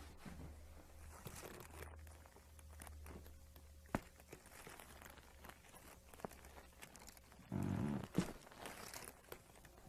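Rustling and shifting of a patient on a chiropractic table, with one sharp click about four seconds in and a short, louder low burst near the eight-second mark.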